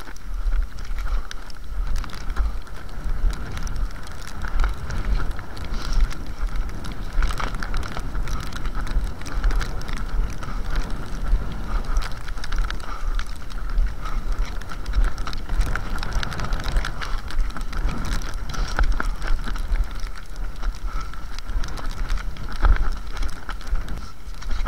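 Cross-country skis sliding in groomed classic tracks, with short clicks of poles planting in the snow, over a low wind rumble on the microphone.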